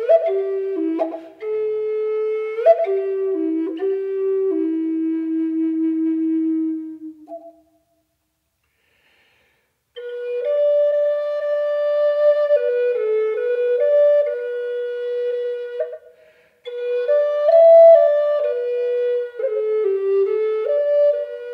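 Background music: a slow solo flute melody of long held notes. It breaks off into silence for about two and a half seconds a third of the way in, then picks up again.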